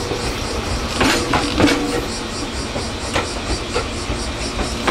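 Meitetsu electric train running through the station, its wheels clacking over rail joints and points in irregular knocks, over the steady rumble of the train.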